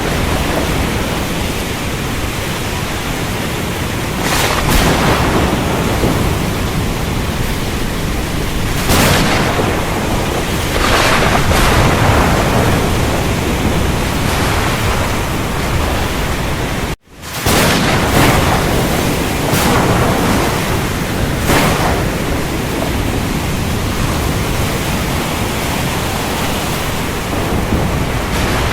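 Thunderstorm: loud steady rain with several sharp thunder cracks spread through, and one brief cut-out of the sound about halfway through.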